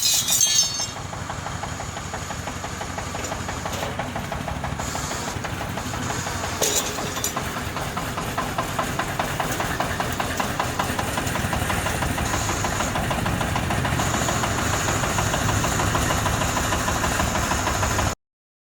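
Engine of a compact excavator running steadily with a knocking clatter, growing slightly louder, with brief sharp noises at the start and about seven seconds in; it cuts off suddenly near the end.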